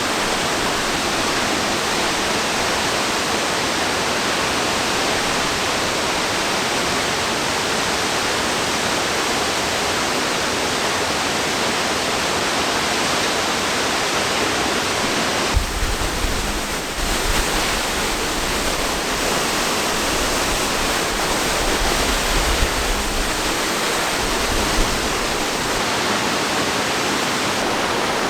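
Waterfall rushing: a steady, loud wash of falling water. A low rumble joins it for several seconds past the middle.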